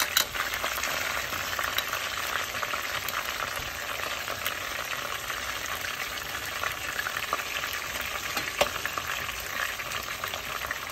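Pieces of whitefish deep-frying in hot oil in a pot: a steady sizzle with a few sharp clicks.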